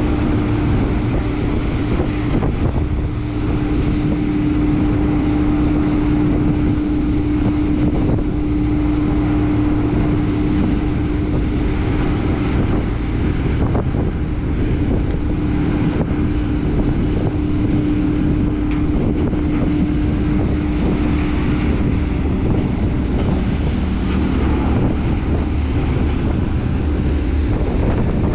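The ro-ro vehicle ferry MV Earl Thorfinn's engines running steadily as it manoeuvres alongside the pier, a constant hum over a low rumble that eases somewhat in the last few seconds. Wind buffets the microphone throughout.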